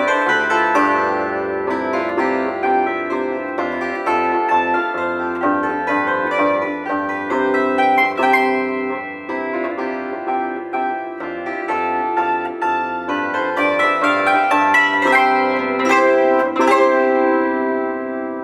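Solo plucked string instrument playing fast runs of notes over a steady bass. Near the end a last chord rings out and fades.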